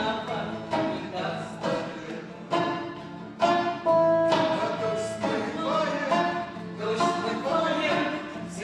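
A song performed live: a voice singing held notes over a plucked-string accompaniment, most likely acoustic guitar, with a sharp pluck about once a second.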